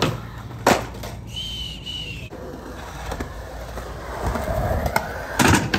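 Skateboard wheels rolling on concrete, with sharp clacks of the board hitting the ground about a second in and twice close together near the end. A brief high whistle-like tone sounds about a second and a half in.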